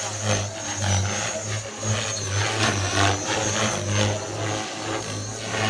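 Electric Align T-Rex 470LT RC helicopter in flight, its main rotor spun at 3200 rpm giving a steady low buzz and its motor a high thin whine. The blade noise swells and fades in quick swooshes as it manoeuvres.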